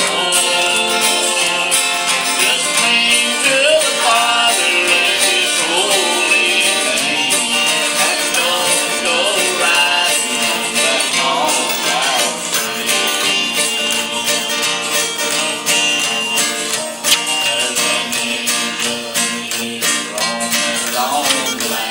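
A man and a boy singing a country song into microphones over guitar accompaniment.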